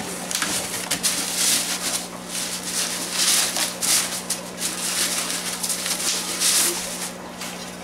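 Plastic bubble wrap crinkling and rustling in repeated bursts as a wrapped stone is lifted out of a cardboard box and handled.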